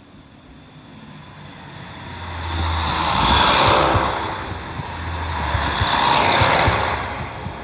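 KiHa 40 diesel railcar moving past close by: diesel engine rumble and wheel-on-rail noise swell twice, loudest about three and six seconds in, with sharp clicks and thumps from the wheels over rail joints in the second half.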